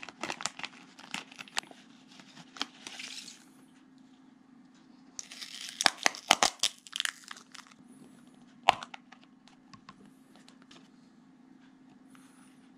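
Paper and plastic packaging being cut open and unwrapped by hand: scissor snips and short clicks at first, then a few seconds of crinkling and rustling wrapping. A single sharp click comes about nine seconds in.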